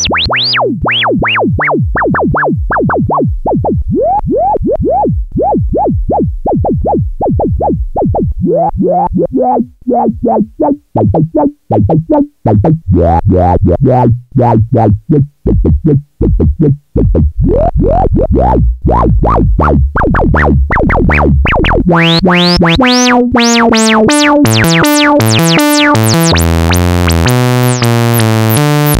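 Sawtooth synth sequence of quick, short notes run through an SE 4075 Eurorack filter, each note with a falling filter sweep. The cutoff is turned down a few seconds in so the notes go dull and bassy, then opened up with resonance about three-quarters of the way through, where the notes turn bright and buzzy and run into a held tone.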